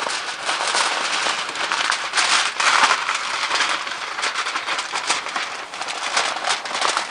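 Aluminum foil crinkling and crackling as it is pressed and crimped tightly over the rim of a disposable aluminum pan, a dense run of small crackles.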